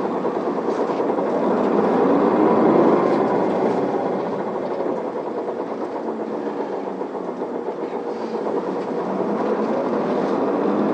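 Isuzu Erga city bus's diesel engine and drivetrain heard inside the cabin as the bus pulls away from a stop: the engine note rises over the first few seconds, eases off, then climbs again near the end.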